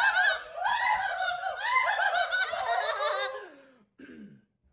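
Two young men laughing and shrieking in high, wavering voices, dying away about three and a half seconds in.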